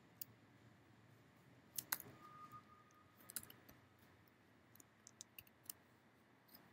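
Scattered keystrokes on a computer keyboard over faint room tone: a single click, a quick pair about two seconds in, another pair past three seconds, and a run of four quick clicks near the end.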